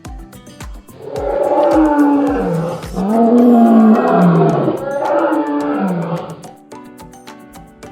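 A loud T-Rex roar in three long growling sweeps, each falling in pitch at its end, starting about a second in and stopping well before the end, over plucked background music.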